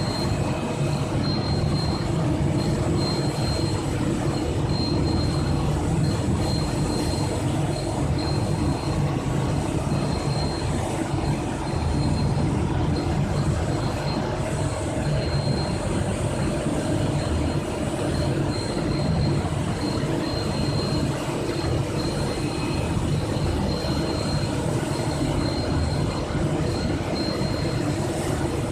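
Biomass burner running on a steam boiler: a steady, loud mechanical rumble with a thin high whine that comes and goes.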